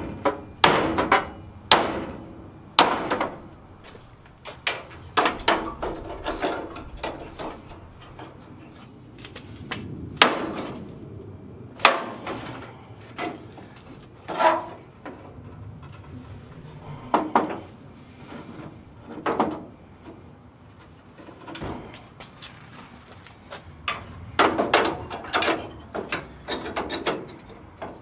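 A long steel bar knocking and clanking against the front end of a 1966 Ford F250 as it is used to pry and strike. The knocks come irregularly, in uneven clusters, with a dense run of them near the end.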